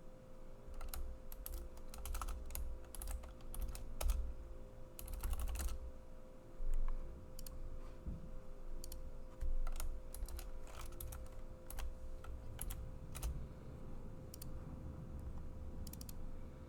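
Typing on a computer keyboard: irregular runs of keystrokes with short pauses between them, over a faint steady hum.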